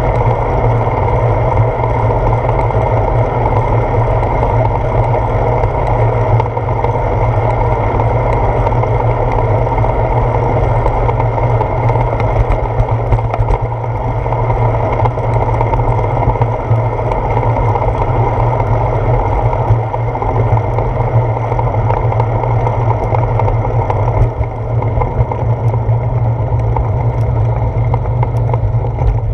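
Steady wind rumble and road vibration on a bicycle's handlebar-mounted GoPro Hero 4 while riding along a paved road.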